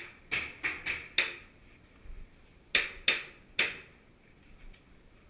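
Airsoft guns firing single shots: five sharp shots in quick succession, then three more about a second and a half later, each echoing off the bare concrete walls of a corridor.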